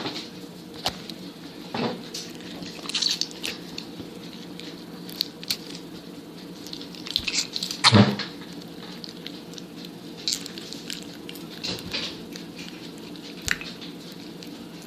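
Slime being squished and poked by hand, giving irregular squishing clicks and pops, the loudest about 8 seconds in.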